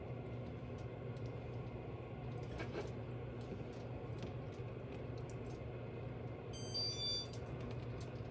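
Quiet kitchen with a steady low hum and a few faint soft taps as cheese cubes are set onto puff pastry. About seven seconds in comes a short run of high electronic beeps at several pitches.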